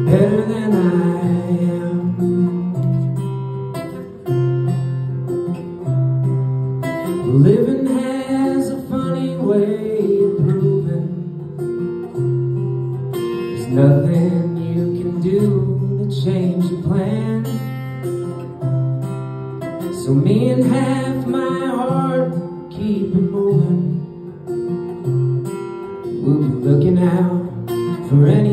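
A man singing to his own acoustic guitar, with sung phrases every few seconds over a steady picked and strummed guitar accompaniment.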